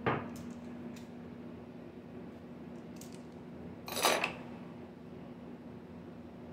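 Small metal valve-train parts of a Toyota Hilux cylinder head clinking as they are lifted out and handled by hand: a sharp clink at the start, a few light ticks, and a louder clatter of metal on metal about four seconds in.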